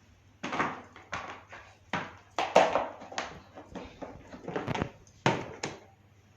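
Plastic storage boxes and vegetables being handled: about ten irregular knocks and rustles as produce is packed into the boxes.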